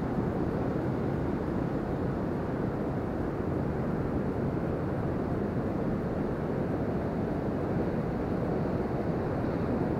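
Steady low rush of ocean surf breaking on a sandy beach, with wind buffeting the microphone.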